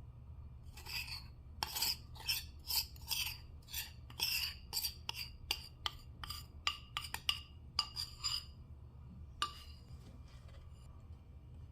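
A kitchen utensil scraping in quick rasping strokes, about two a second, stopping about three-quarters of the way through, followed by one last stroke.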